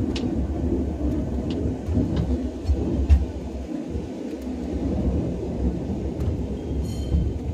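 Tram running on rails: a steady low rumble with scattered clicks, and a short high tone near the end.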